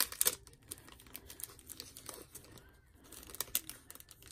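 Small plastic packet crinkling and rustling in the hands as thin wood veneer pieces are worked in it, in short irregular bursts with a few sharper clicks.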